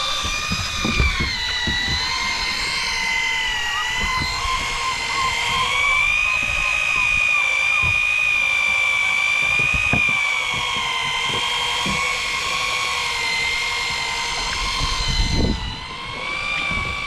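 Electric fishing reel winding in line, its motor giving a steady whine whose pitch wavers slowly up and down under load and falters briefly near the end. Scattered low knocks sound under it.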